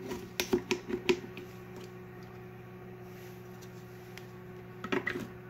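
Hard plastic clicks and knocks as a dicing-kit cleaning tool is fitted and pressed against a food processor's dicing grid. There is a quick run of about half a dozen clicks in the first second and a half and a few more near the end, over a steady low hum.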